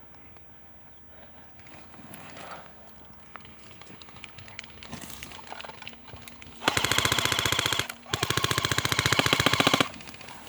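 Airsoft electric gun firing on full auto: two rapid bursts, the first about a second long and the second a little longer, after a short break, each a fast even rattle of shots with the whirr of the gearbox. Before them, only faint rustling.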